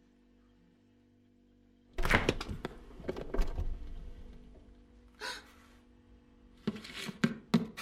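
A faint low steady hum, then about two seconds in a sudden thunk followed by a rapid run of clattering knocks and clicks that die away, with another short burst a few seconds later and a cluster of knocks near the end.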